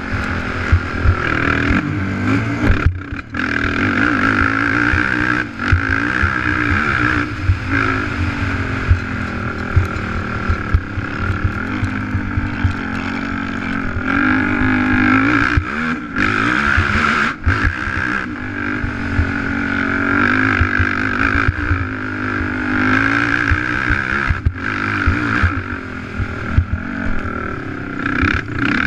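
Racing ATV engine running hard at high revs, its pitch rising and falling with the throttle and gear changes. There are brief drops where the throttle is shut, about three seconds in and again a few times later. Low buffeting thumps run under it.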